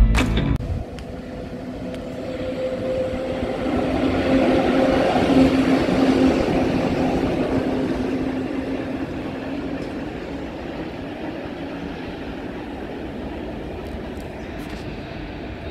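PKP SM42 diesel shunting locomotive passing with an EP07 electric locomotive coupled behind, its engine giving a steady low hum over the rumble of the wheels. It grows to its loudest about five or six seconds in, then fades slowly as it moves away.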